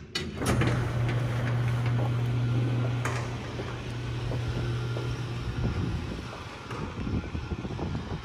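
Electric garage door opener running as a sectional garage door rolls up: a steady motor hum that stops about five seconds in, followed by irregular knocking from the door.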